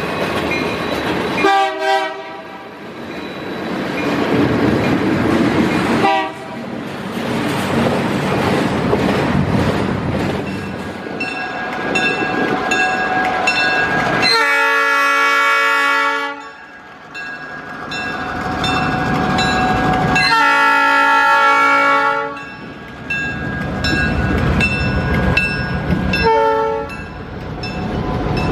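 Freight cars rolling past with wheels clacking over rail joints. Then a diesel locomotive horn sounds the grade-crossing signal over the rumble of the train: two long blasts, a short one and another long one starting near the end.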